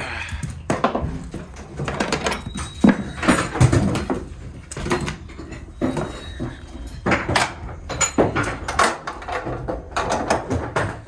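Ratchet tie-down straps being released from a car inside an enclosed trailer: an irregular run of clicks, clanks and knocks from the ratchets and metal hooks.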